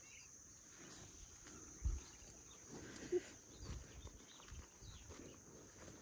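Quiet outdoor ambience with a steady high insect chirring, and a faint low thump about two seconds in, with a few softer ones later.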